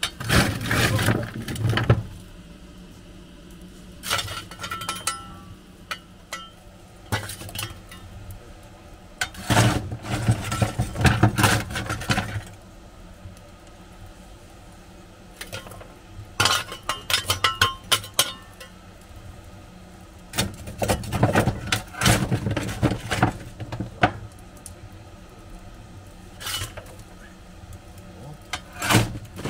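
Steam locomotive being fired by hand: a metal shovel scrapes up coal and clanks against the firehole as lumps are tipped into the firebox. The clinking comes in repeated bouts a few seconds apart, over a steady low hum.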